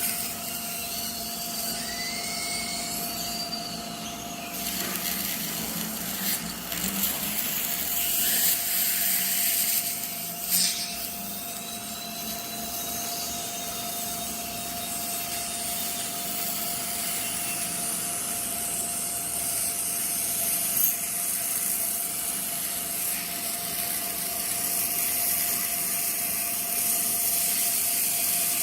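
Dental drill whining, its pitch rising and falling as it speeds up and slows down, over a steady hiss and a steady tone.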